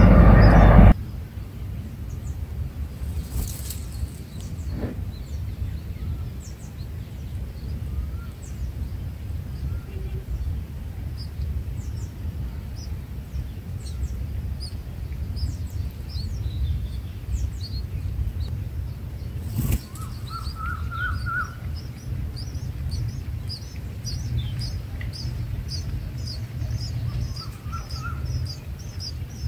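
Thin, high-pitched begging chirps from red-whiskered bulbul nestlings, scattered at first and then coming in a rapid run over the last few seconds as the chicks gape to be fed. Underneath is a steady low rumble. A loud rushing noise cuts off about a second in.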